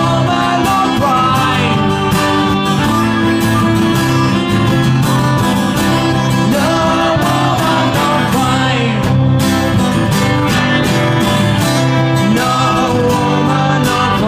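Country-style song on acoustic guitar, strummed steadily, with a voice singing over it.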